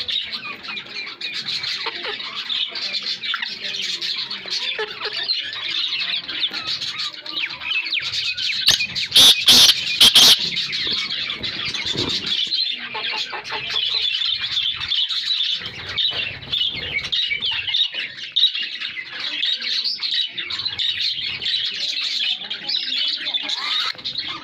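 Male black francolin giving a short run of loud, harsh calls about nine seconds in, over continuous chirping and chattering from small cage birds.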